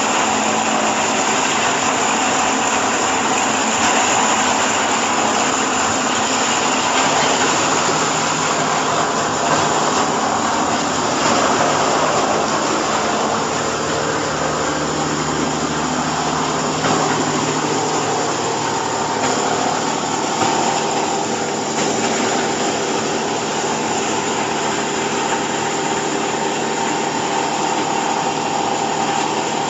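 Baling machine running: a steady mechanical drone with a faint hum.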